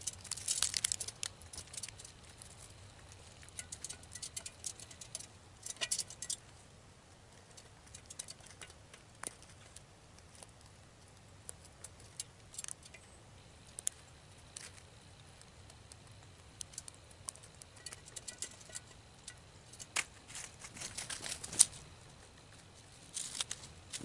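Gray squirrel foraging at seed trays: faint scattered clicks, scratches and crackles of claws and teeth on seed and plastic tray. They come in short clusters, strongest at the start and again near the end.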